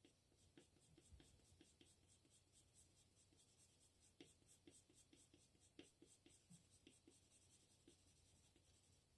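Faint scratching of a Tombow NQ colored pencil shading on paper in quick, even back-and-forth strokes.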